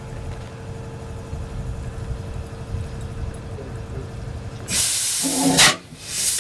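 1910 Cooper Bessemer 35 HP single-cylinder two-stroke engine being started: after a low steady hum, loud hissing chuffs break in about four and a half seconds in, two of them about a second apart, as the big flywheel starts to turn over.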